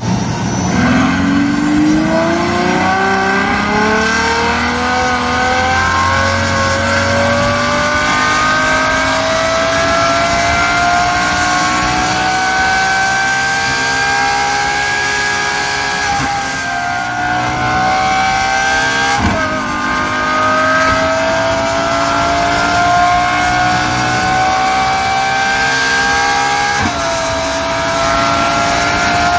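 Ferrari FF's naturally aspirated V12 on a dyno run, heard through a catless downpipe and mid X-pipe exhaust on a Stage 2 tune. The engine pulls at full throttle, its pitch climbing steadily; near two-thirds of the way through and again near the end it drops sharply as it shifts up, then climbs again.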